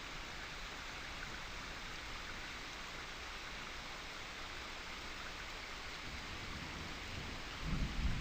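Steady summer rain falling, with a low roll of thunder starting near the end.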